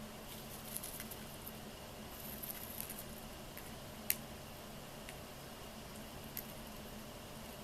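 Lovebird husking millet seeds from a millet spray held in its foot: small scattered crackles and clicks, with one sharper click about four seconds in.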